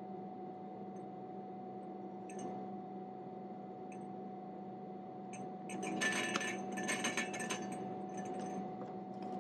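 Powder being tipped off a folded sheet of paper into a glass test tube, as sulfur and iron powders are combined. Grains patter and tick against the glass, with a few faint ticks at first and a dense crackling run from about six to seven and a half seconds in.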